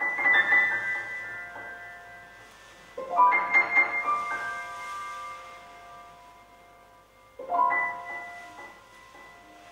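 Chords in a high register played on a keyboard. They are struck three times, roughly four seconds apart, and each is left to ring and fade.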